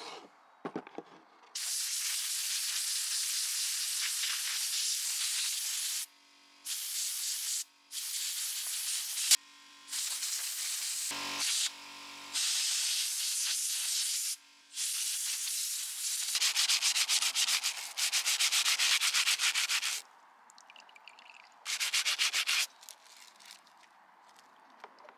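Grimy angle grinder parts being scrubbed clean in repeated bursts of scraping, with fast back-and-forth strokes near the end.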